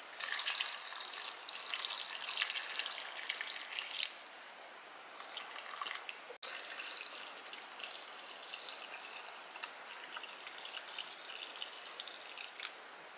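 Pickling brine poured from a glass measuring cup through a plastic canning funnel into mason jars of cauliflower, a light uneven trickle and splash as the jars are backfilled.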